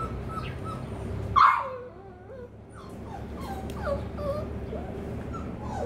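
A beagle whining in a string of short whimpers that slide up and down in pitch, with one loud, sharp yip about one and a half seconds in.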